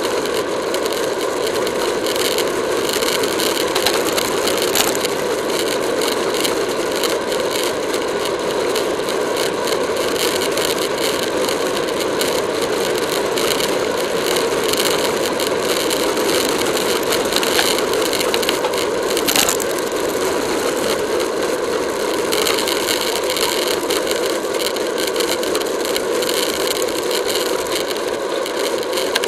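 Steady rush of wind and road vibration on a camera riding on a racing bicycle at about 25 to 29 mph, with a couple of sharp clicks.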